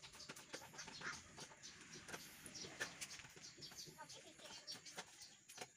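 Faint clicks and clunks from a bare manual transmission as its input shaft is turned and its shift lever is moved by hand, with birds calling with short high notes in the background.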